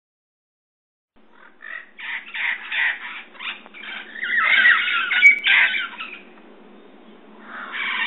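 Red-crowned parrots squawking loudly: a rapid run of short calls starting about a second in, loudest past the middle, then a brief lull before more calls near the end.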